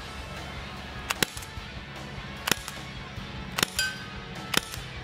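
Umarex HDR 68 CO2-powered .68-calibre revolver firing about four sharp shots, roughly a second apart.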